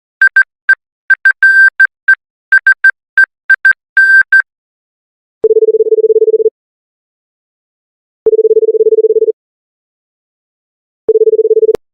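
Electronic telephone tones. First comes a quick, uneven run of short and longer beeps, all at one high pitch. Then a lower ringing tone sounds three times, each about a second long and about three seconds apart, as a call rings through.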